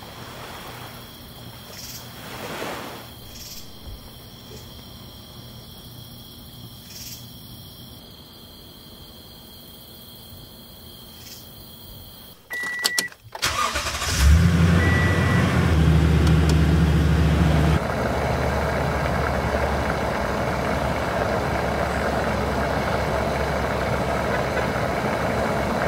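A faint steady high tone, then a couple of clicks and a short beep, and a pickup truck's engine starts and settles into a loud idle, dropping to a lower, steady idle a few seconds later.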